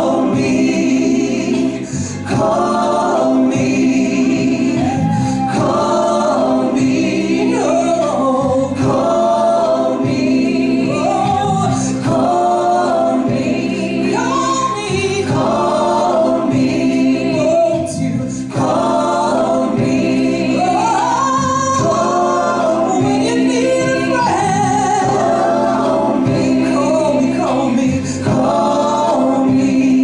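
Two women singing a live duet into handheld microphones over musical accompaniment.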